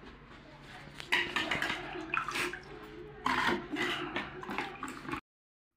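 Water splashing and running in uneven surges, which cuts off abruptly about five seconds in.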